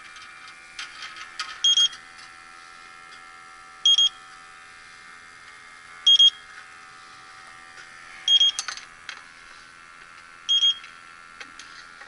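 TIF ZX-1 electronic refrigerant leak detector beeping slowly and evenly, five short high beeps about two seconds apart, over a steady high hum. This is its unhurried idle rate as it probes the condenser's tubing and compressor, a sign that it is picking up no refrigerant.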